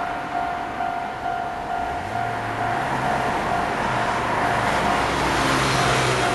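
Japanese railway level crossing warning bell ringing steadily, a single tone repeating about twice a second. From about two seconds in, an approaching Enoden train's running noise and low hum build under it and become loudest near the end.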